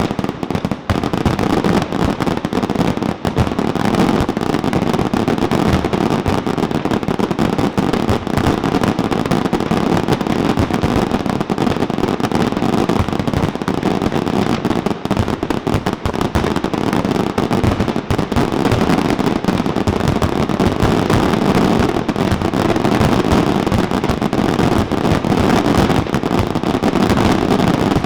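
Fireworks going off in a dense, continuous barrage: shell bursts and crackling packed so tightly that the reports run together without a pause.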